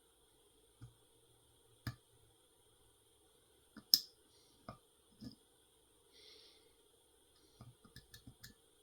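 Small scattered clicks and taps of a lock pick and tension wrench working the pins of a Schlage Primus Everest lock cylinder, the sharpest about four seconds in, with a quick run of ticks near the end. A soft breath through the nose a little after the middle.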